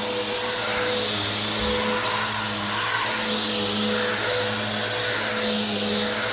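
Bissell vacuum cleaner running steadily, its motor humming under a rush of air. The sound swells and fades a little as it is worked back and forth over the floor.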